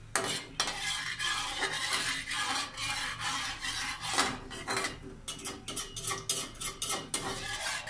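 Metal spatula scraping and stirring around an aluminium wok holding a little unheated cooking oil: a run of rasping strokes and light clinks, coming quicker in the second half.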